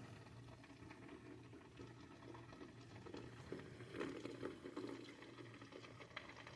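Light rain falling: a faint, steady patter of many small drops.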